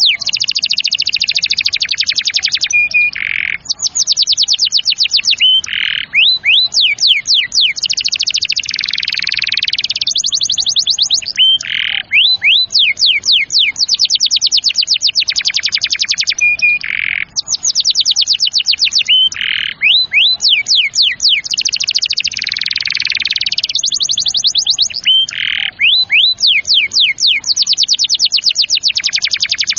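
Domestic canary singing a long, continuous song of fast trills and rolls, phrase after phrase with only brief breaks between them.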